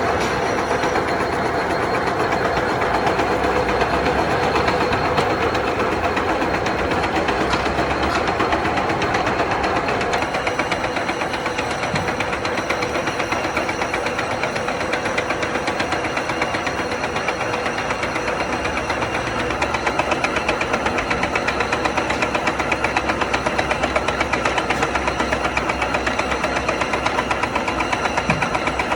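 Metal lathe running while turning a heavy steel shaft: a steady machine drone with a fast, even pulse that becomes more pronounced in the second half.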